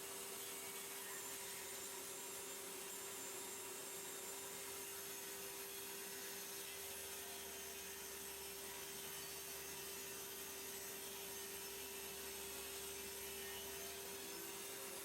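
Table saw running with a steady hum and hiss; from about six seconds in to near the end, a low drone joins it as the blade cuts through a wooden pen blank.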